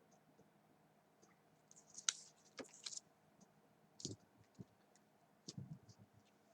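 Near silence with faint, scattered small clicks and rustles, a few a second through the middle.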